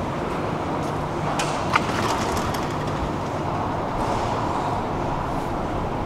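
Subway escalator running: a steady mechanical rumble with a low hum. A few light clicks and ticks come about a second and a half in, with one sharp click among them.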